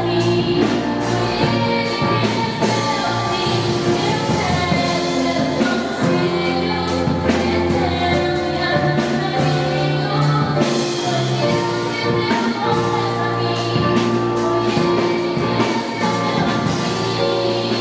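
A woman singing a Portuguese love song through a microphone, with held, sustained notes, backed by a live band that includes a violin.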